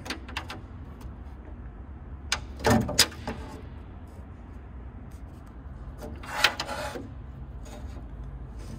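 Handling noise inside a small wooden aircraft cockpit: a few knocks and clicks about two to three seconds in and a longer scraping rustle around six and a half seconds, over a steady low hum.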